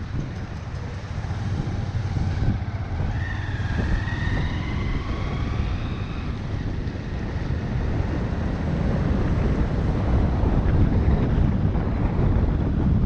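Street traffic rumbling steadily, with wind buffeting the microphone; a faint wavering pitched sound rises over it a few seconds in, and the noise grows a little louder toward the end.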